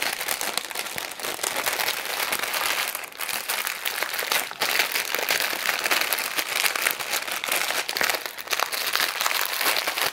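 Clear plastic packaging film crinkling and rustling as it is handled, a continuous run of crackles with brief lulls about three and four and a half seconds in.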